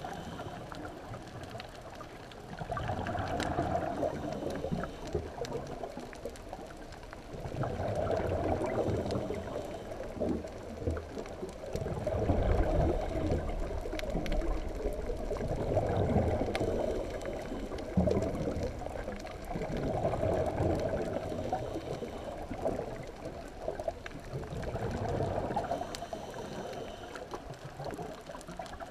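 Scuba diver's exhaled breath bubbling out of the regulator underwater: a gurgling swell about every four seconds, with quieter stretches between them.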